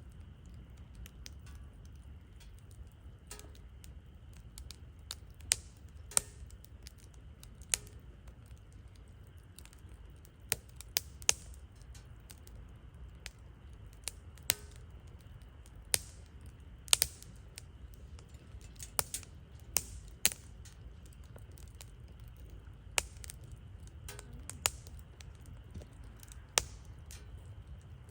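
Wood campfire crackling: irregular sharp pops and snaps, roughly one every second or so, over a low steady rumble.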